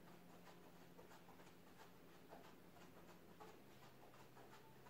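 Near silence: room tone with a faint steady low hum and faint soft ticks and scuffs.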